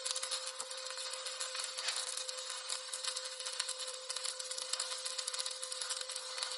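Stick-welding arc crackling steadily as an electrode burns along a flat-position weld bead, a dense frying hiss full of fine irregular pops, with a steady hum underneath.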